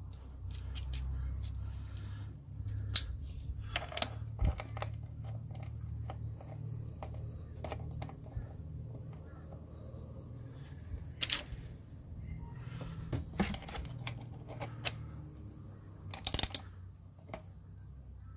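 Scattered light metallic clicks and taps from a chain press tool being tightened with a wrench, pressing a motorcycle drive chain's master-link side plate onto its pins, over a steady low hum.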